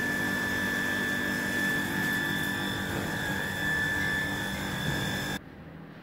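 Robowash touchless car-wash gantry running during its bug-remover (fly chemical) stage: a steady drone of its pump and motors with a constant high whine. It stops abruptly near the end.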